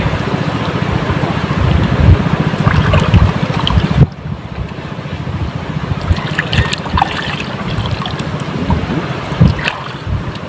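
Wind buffeting the microphone in a steady low rumble, with scattered small clicks and knocks; the upper hiss thins out about four seconds in.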